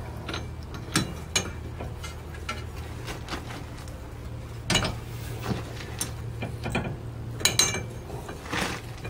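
Irregular metallic clinks and knocks as hand tools and front steering parts are handled, loudest about five seconds in and again near the end, over a low steady hum.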